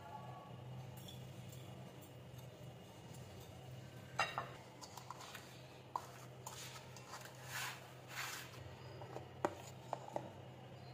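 Metal spoon clinking against a glass bowl while crushed biscuit crumbs are scraped in and pressed down with a plastic cup: a few sharp clinks and several short scraping sounds, over a faint steady hum.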